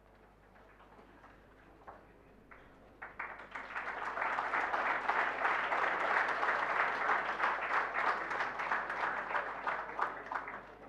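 Audience applauding: a few scattered claps at first, building to steady clapping about three seconds in, which fades out near the end.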